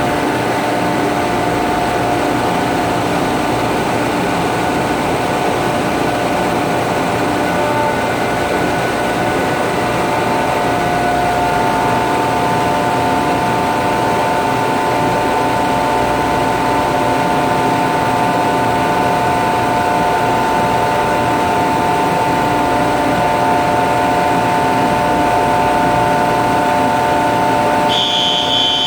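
A steady mechanical hum with several steady tones runs throughout. Near the end, a smoke detector under test starts its alarm: short, high-pitched beeps that switch on and off about twice a second, a sign that the detector responds.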